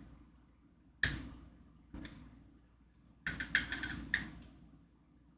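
Knocks and clicks of needlework stand parts being handled as a bolt is tried in its hole: one knock about a second in, another a second later, then a quick run of several clicks.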